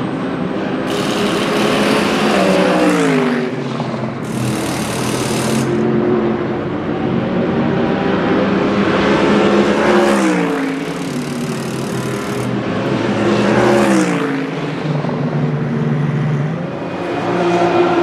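BMW M4 GT3 race cars' twin-turbo straight-six engines running at speed, the engine note dropping in pitch three times as the cars come through. Two loud hissing bursts sound in the first six seconds.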